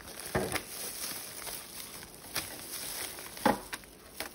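Crinkling of a turkey's plastic wrapping and a foil roasting pan, with a few sharp clicks as kitchen scissors cut through the mesh net. The loudest click comes about three and a half seconds in.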